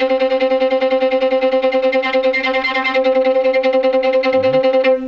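Violin played sautillé, the bouncing stroke in which only the bow stick bounces while the hair stays near the string. It gives a fast, even stream of short repeated notes on one pitch, about ten strokes a second, stopping just before the end.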